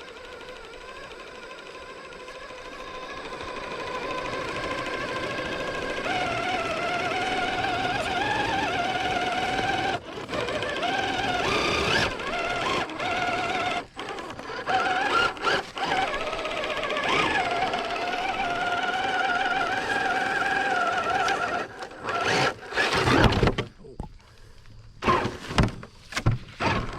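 Traxxas TRX-4 Sport RC crawler's brushed electric motor and geared transmission whining as it drives, the pitch wavering up and down with throttle. It cuts out briefly twice, then runs in short stop-start spurts near the end.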